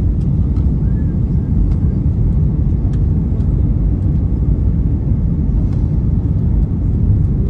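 Airliner cabin noise: the steady low rumble of the engines and airflow heard from inside the passenger cabin during descent.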